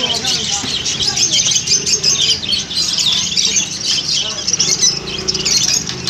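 Many caged small parrots, budgerigars and lovebirds, chirping and chattering at once in a dense, unbroken chorus of short high chirps.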